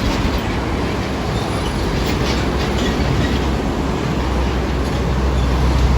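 Heavy road traffic: a steady rush of tyre and engine noise, with a heavy vehicle's low engine rumble growing louder over the last couple of seconds as it draws near.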